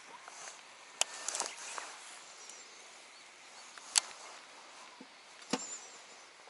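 A few sharp clicks from a Shimano Calcutta Conquest BFS baitcasting reel being worked in the hands: one about a second in, a quick cluster just after, a louder one about four seconds in and another near the end. There are a couple of faint high chirps in the background.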